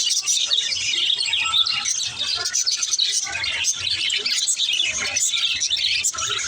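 Pet budgies chattering: a dense, continuous stream of high chirps and warbles.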